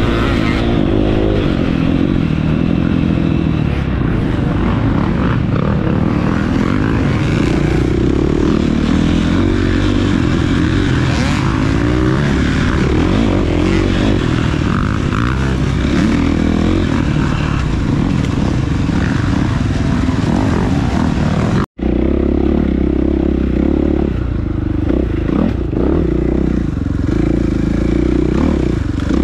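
Off-road motorcycle engine running hard and revving under a race start, with clatter and rough wind noise. The sound cuts out for a split second about two-thirds of the way through.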